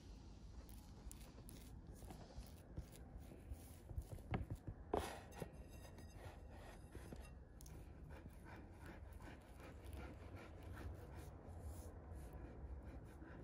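Fingers dabbing and rubbing softened butter over a thin rolled sheet of dough, a faint soft handling sound, with a few sharp knocks about four to five seconds in.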